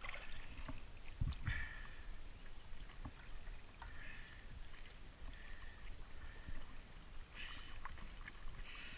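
Shallow water sloshing and splashing around a scuba diver as he crawls out onto a submerged dock ramp, with a couple of dull knocks about a second in.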